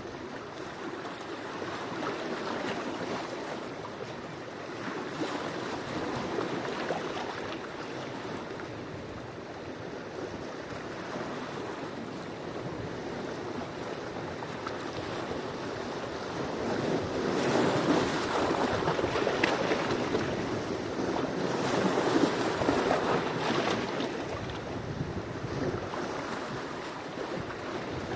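Sea waves washing onto the shore, a steady rushing surf that swells and recedes in slow surges, with the two strongest waves past the middle.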